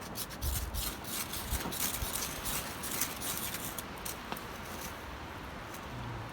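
Small twig-burning gasifier stove crackling, with dense sharp crackles and rustles and low rumbles of wind on the microphone, strongest in the first two seconds.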